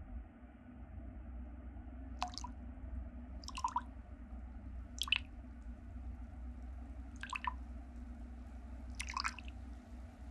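Five water drips, spaced about one and a half to two seconds apart, over a steady low drone.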